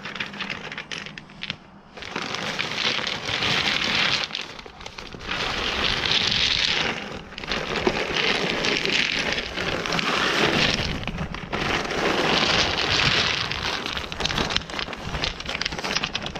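Mexican beach pebbles clattering and tumbling out of a plastic bag onto weed-barrier fabric and onto each other, in several pours a few seconds long with short pauses between, with the bag crinkling.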